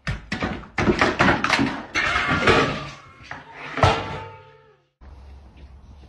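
Two cats scuffling on a bathroom floor: a quick run of thumps and knocks that lasts about four and a half seconds and then stops abruptly.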